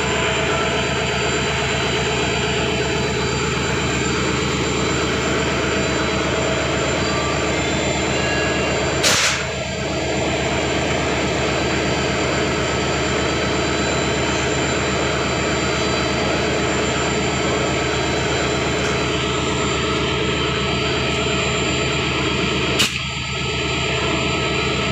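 WDG4 diesel-electric locomotive's two-stroke V16 engine and cooling blowers running steadily, heard close up. Two sharp clicks cut through, one about a third of the way in and one near the end.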